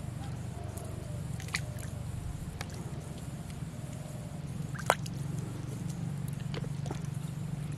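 Bamboo fishing rods being lifted and recast into a pond, the float and line dropping into the water with a few sharp ticks and small plops, the loudest about five seconds in, over a steady low hum.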